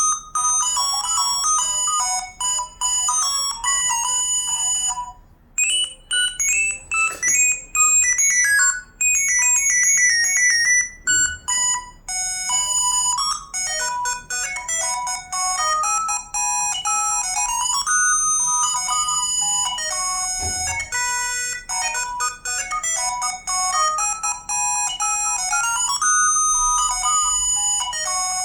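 ZTE V617 mobile phone ringtones: electronic melodic tunes playing one after another, the tune changing about five seconds in and again about twelve seconds in.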